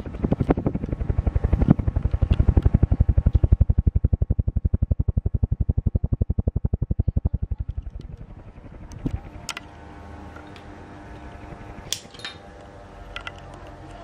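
Blade wash from a Niga FC08-90 900mm mini ceiling fan buffeting the microphone in rapid, even pulses as the blades sweep past, loudest in the first half and fading out after about eight seconds. Then a steady buzzing hum from another mini ceiling fan running, with a few light clicks.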